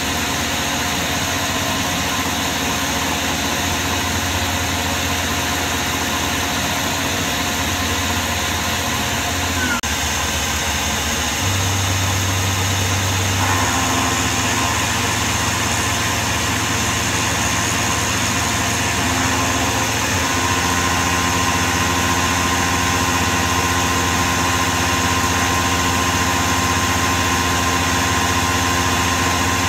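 CNC milling machine spindle running, its end mill cutting an aluminium block in a steady machining drone. The pitch steps to a new level a few times as the cut goes on.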